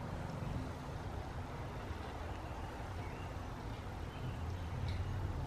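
Steady low background rumble of vehicle traffic.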